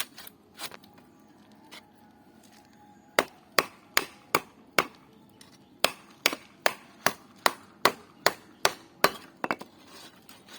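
A blade chopping through catla fish, striking the cutting surface in a steady run of about fifteen sharp knocks, roughly two or three a second, with a short pause partway through.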